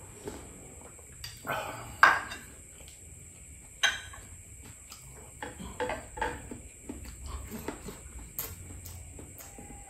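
Slurping hot sinigang broth straight from a ceramic bowl, loudest about two seconds in, then a sharp ceramic clink near four seconds as the bowl is set down on the table, followed by soft chewing and mouth sounds.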